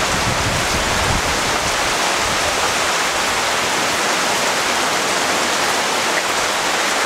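Steady rain pouring down on garden foliage and ground, an even hiss with no let-up.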